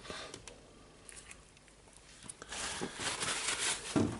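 Workbench handling noises: a few light clicks, then about a second and a half of rustling with small clicks in it, ending in a short knock.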